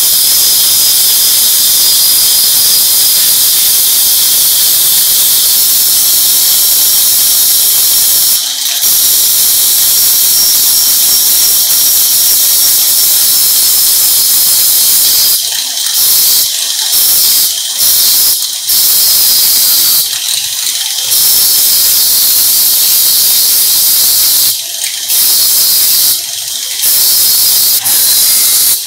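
Angle grinder with an abrasive disc grinding a small round metal part: a steady, loud, high-pitched hiss with a faint whine. The sound drops off briefly several times in the second half as the disc is lifted off the metal.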